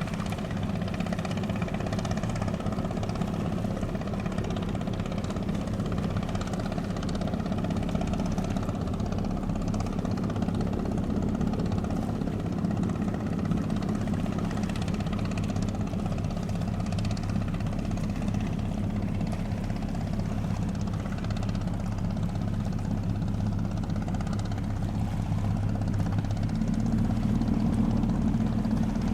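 Diesel engines of a harbour fast ferry running steadily at low revs, a low throb that swells a little near the end.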